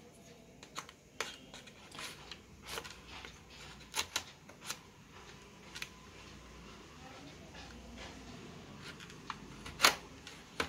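A small cardboard retail box being handled and slit open with a blade: scattered clicks and scrapes, with a quieter stretch in the middle and the loudest click near the end.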